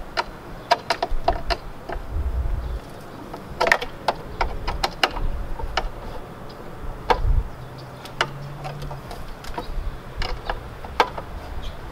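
Wrench clicking and clinking on the arbor bolt and blade guard of a Milwaukee miter saw as the blade is being taken off: an irregular scatter of small metal clicks and taps, with a couple of dull thumps from handling the saw.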